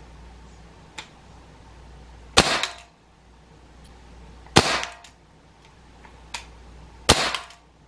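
Gamo PR-776 CO2 air revolver firing three shots about two seconds apart, each a sharp pop with a short tail. There are faint clicks between the shots.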